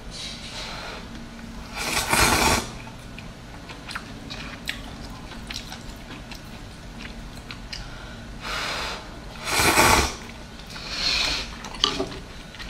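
Noisy slurping of hot and sour glass noodles (suanlafen), with chewing in between; about four loud slurps, the first about two seconds in and three close together in the last third.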